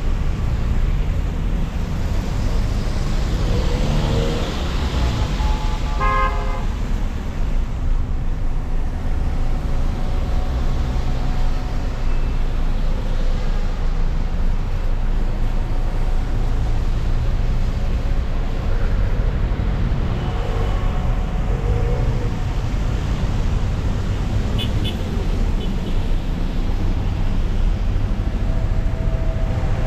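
Road traffic: a steady rumble of vehicles and road noise, with car horns tooting briefly now and then, one clearly about six seconds in.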